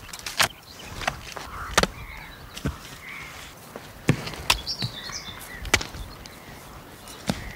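Irregular sharp knocks of coconuts being picked up and tossed together, about eight in all, with faint bird chirps in the middle.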